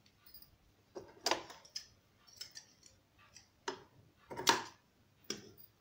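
Scissors snipping cloth strips to length: about half a dozen short, sharp cuts at irregular intervals, the loudest about three-quarters of the way through.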